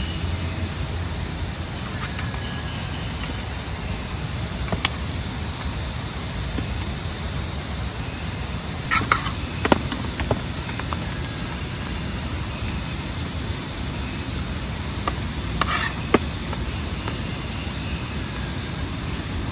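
Steady rain noise throughout, with a metal spoon clinking and scraping against metal camping bowls and pots a few times. The most distinct clinks come about nine seconds in and again about sixteen seconds in.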